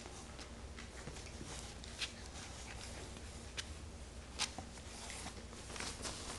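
A puppy scuffling on a carpet and mouthing a plush toy: soft, irregular rustling with scattered light clicks and taps, the sharpest about four seconds in.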